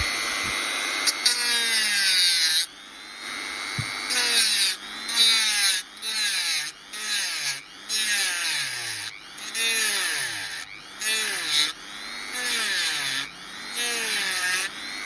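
Dremel rotary tool running at high speed with a sanding wheel, grinding down a doll joint repair piece in repeated short passes a little under twice a second. The motor's whine sags in pitch each time the wheel bears on the piece and recovers between passes.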